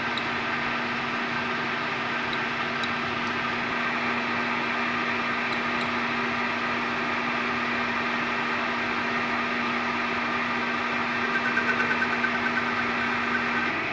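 Metal lathe running without cutting at 495 rpm, its motor and gear drive spinning the chuck and workpiece: a steady mechanical hum with a held whine in it that drops away near the end.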